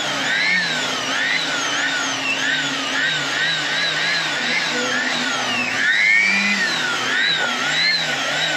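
Handheld electric blower running. Its motor whine rises and falls in pitch over and over.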